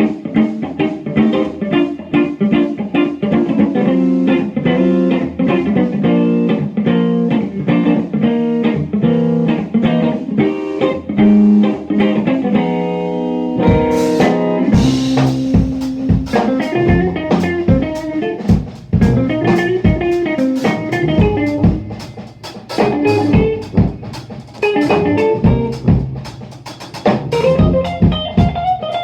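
Instrumental funk-jazz trio playing: guitar over a tuba bass line with drum kit. About fourteen seconds in, a cymbal crash and the drums come in more fully.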